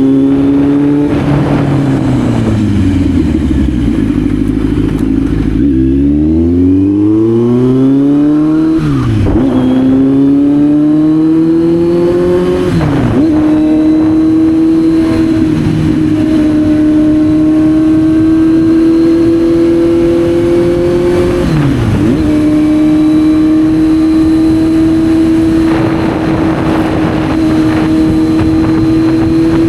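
Kawasaki Z900's inline-four engine heard on board while riding. The engine note falls as the bike slows, then climbs through the gears with a brief dip at each upshift, about six, nine and thirteen seconds in. It then holds a steady cruise, with another shift a little past twenty seconds.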